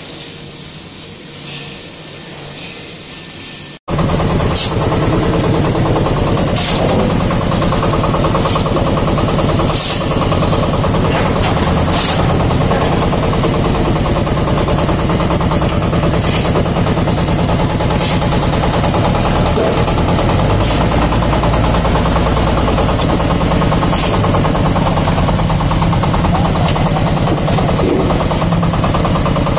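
Diesel hydraulic concrete block machine running: a steady engine drone under a loud, very fast rattle from the vibrating mould, with a sharp clank every couple of seconds. The loud running starts abruptly about four seconds in, after a quieter opening.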